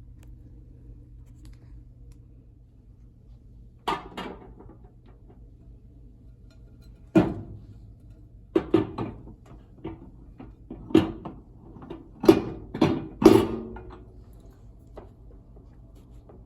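A series of about ten knocks and thuds spread irregularly over ten seconds, the loudest close together near the end, like objects and doors being handled in a kitchen. A low steady hum lies under them.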